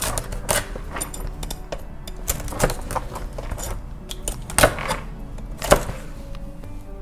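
Knife cutting and cracking through a king crab's shell: a string of sharp cracks and clicks, the two loudest about four and a half and nearly six seconds in, over background music.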